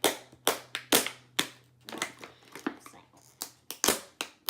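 Plastic toy packaging being pulled and cracked open by hand: a quick, irregular run of sharp snaps and crackles.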